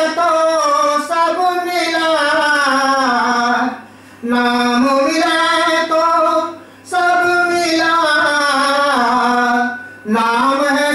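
A solo voice singing a devotional verse unaccompanied in long, drawn-out phrases with slow glides in pitch. Three phrases are separated by short breaths, and a fourth begins near the end.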